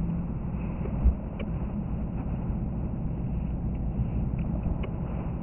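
Steady in-cabin rumble of a car driving on a snow-covered expressway, engine and tyre noise, with one low thump about a second in and a few faint ticks.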